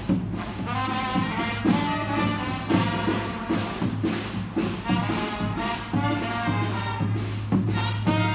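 Music with brass instruments, trombone and trumpet, playing over drums that keep a steady beat.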